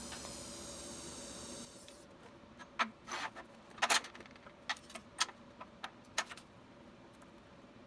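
TIG welding arc on a stainless steel bolt, a steady buzzing hiss that stops about one and a half seconds in. Then a run of sharp metallic clicks and clanks as the torch and a steel hold-down clamp are handled on the steel welding table.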